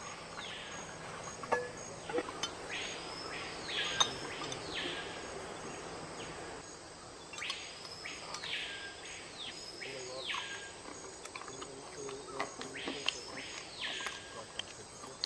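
A bird calling: clear whistled notes that each rise and then fall, given in groups of one to three a few seconds apart, over a faint steady high insect drone.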